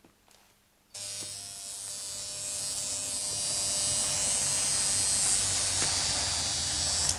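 Corded electric shaver buzzing steadily as it is run over a man's face. It starts suddenly about a second in, grows louder over the next few seconds, and cuts off sharply near the end.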